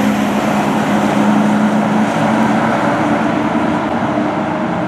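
Fire department aerial ladder truck's diesel engine running with tyre noise as it passes and pulls away down the road, a steady low drone under a spread of road noise.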